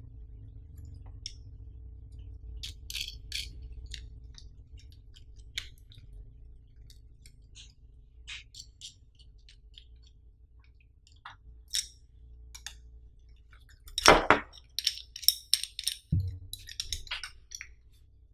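Metal snap hooks and plastic clips of a double camera strap harness clicking and clinking as they are handled, in scattered small clicks. A loud clack about three-quarters through is followed by a quick flurry of clicks and a dull thump.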